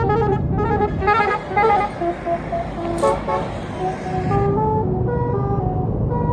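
A tour bus's basuri horn playing a tune of short notes stepping up and down, the 'telolet' melody horn of Indonesian buses. A rush of vehicle noise runs through the middle, with a sharp click about three seconds in.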